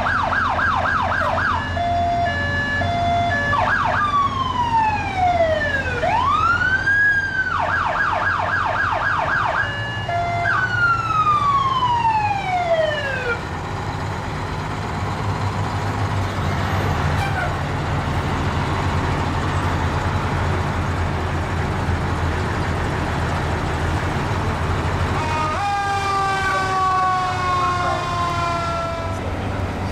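Fire truck electronic sirens cycling through wail, fast yelp and two-tone hi-lo patterns, then the trucks' engines rumbling steadily as they roll past. Near the end comes a held blast of several tones together, sinking slightly in pitch over a few seconds.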